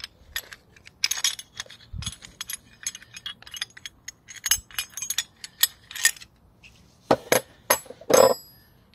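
Metal hand tools and brake caliper parts clinking and tapping against each other: a run of quick light clicks, then a few louder metal knocks near the end, the last one ringing briefly.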